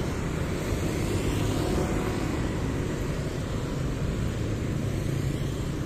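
Steady noise of riding on a motorcycle: the engine running at an even pace under road and wind noise.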